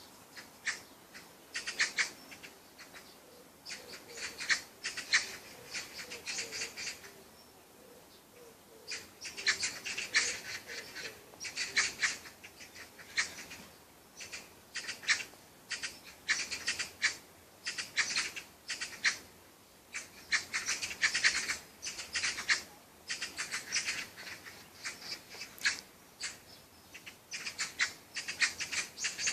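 Bird chirping in quick clusters of rapid high notes, each cluster a second or two long, repeating with short pauses.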